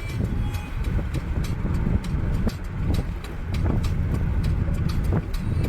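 Moving vehicle on a road: a constant low rumble of engine and tyres, with irregular knocks and rattles as it goes over bumps.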